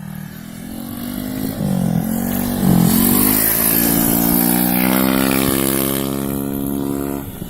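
Honda Vario 130 cc scooter engine being revved. The pitch dips and climbs sharply twice in the first three seconds, then is held high and slowly eases off before the revs drop near the end.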